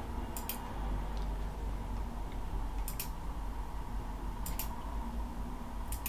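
Computer mouse button clicks, four times, some as a quick double press-and-release, over a low steady hum.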